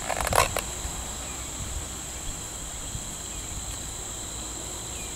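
Steady high-pitched drone of insects, with a brief crackle of a small cardboard box being handled about half a second in.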